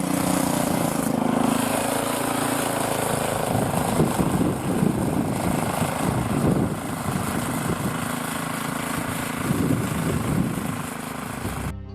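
Blizzard wind blowing hard against the microphone, a rough gusting rush with low buffeting rumbles, and a steady low hum underneath at the start and again later.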